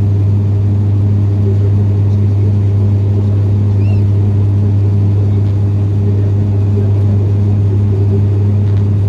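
Steady drone of a Sukhoi Superjet 100's SaM146 turbofans and rushing air, heard from inside the passenger cabin during the climb after take-off: a deep, even hum with steady tones above it and no change in level.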